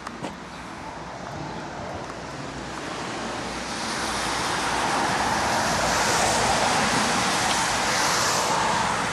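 A vehicle passing on wet asphalt, its tyres hissing through the water: the hiss swells over several seconds, holds, then begins to fade near the end.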